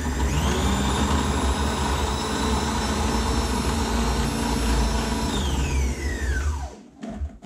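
Electric food processor motor running steadily at high speed with a whine, blending smoked chicken and mayonnaise into a smooth paste. About five seconds in it is switched off and winds down, its whine falling in pitch until it stops.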